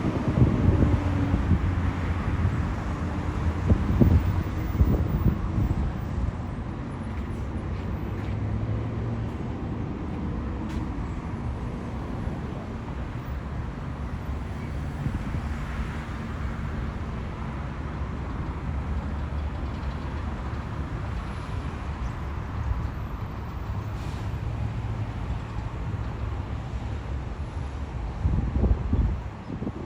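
Low, steady rumble of construction-site machinery and city traffic, with a low motor hum that fades in and out several times.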